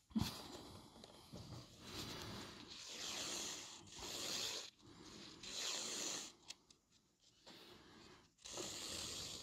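Pencil lead scratching across sketchbook paper in a series of quick strokes, each a faint rasp lasting about a second, with short pauses between them.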